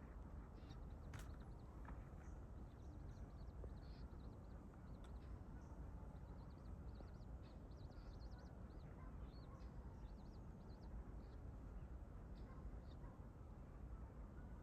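Faint birdsong: many short high chirps over a low rumble of wind.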